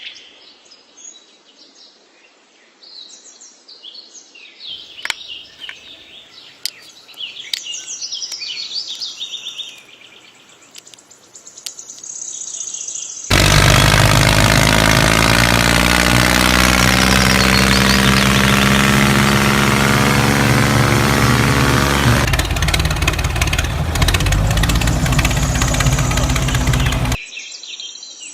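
Birds chirping over quiet background. About halfway through, a loud, steady engine-like mechanical running sound starts abruptly, lasts about fourteen seconds and cuts off suddenly, after which the birds are heard again.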